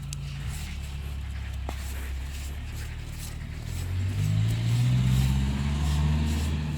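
A motor running with a low steady hum that speeds up and gets louder about four seconds in, then eases off near the end, with light clicks and scraping over it.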